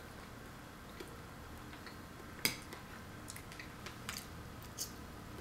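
A fork clicking against a ceramic plate while picking up food, with faint chewing. The sharpest click comes about two and a half seconds in, followed by a few lighter ticks.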